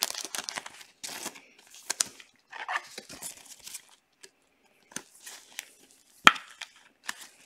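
Plastic card sleeve and rigid toploader rustling and crinkling in gloved hands as a trading card is slid into them, with one sharp click a little past six seconds in.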